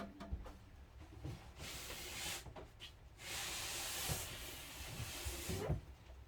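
Handling noise: two stretches of hissing rubbing or sliding, a short one and a longer one from about three seconds in, with a few soft knocks.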